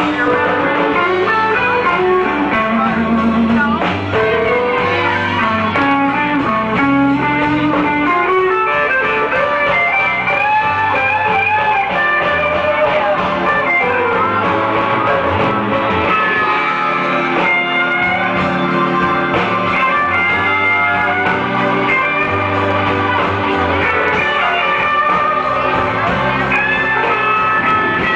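Live blues band playing an up-tempo number, with electric guitar prominent and saxophones in the band.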